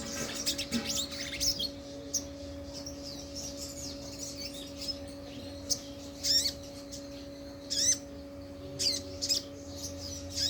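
A sogok ontong (sogon), a bird of the sunbird family, calls in high, sharp chirps and short trills. A few louder, sharper calls come from about six seconds in, over a steady low electrical hum.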